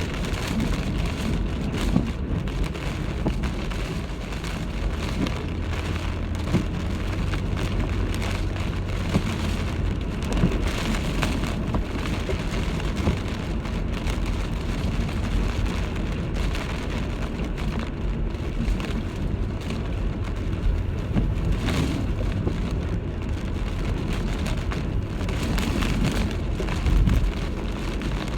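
Typhoon rainstorm: heavy rain beating down in a steady rush, with many sharp drop hits over a constant low rumble of wind.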